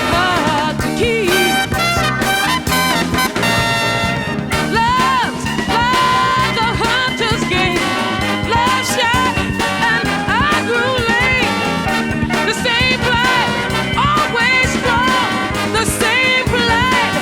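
Upbeat background music in a swing/ska style, with a vocal line over horns and a steady beat.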